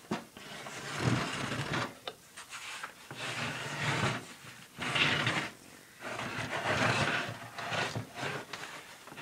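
A small wooden cabinet being turned and shifted by hand on a tabletop: a run of irregular wooden scrapes and rubs, each lasting about a second, with a few light knocks.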